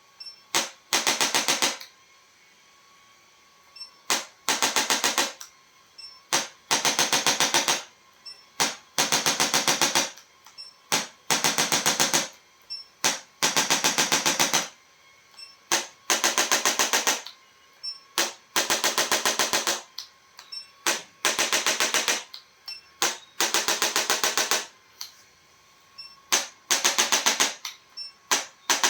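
Bursts of rapid, evenly spaced mechanical tapping, each about a second long, repeating roughly every two seconds, with a few single taps just before most bursts.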